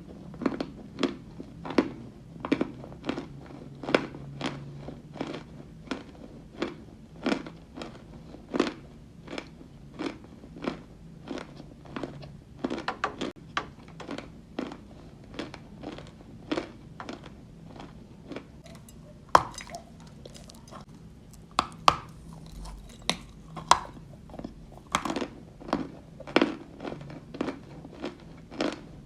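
A person chewing white Turkestan edible chalk, with crisp, dry crunches about one to two a second and a few louder snapping bites in the second half.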